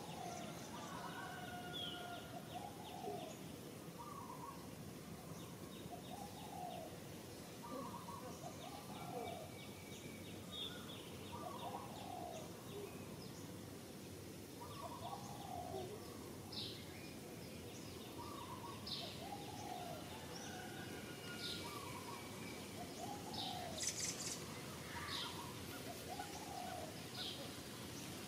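Birds calling in the forest: one bird repeats a short two-part call every second or two, while others give thin, high chirps now and then over a steady background hiss.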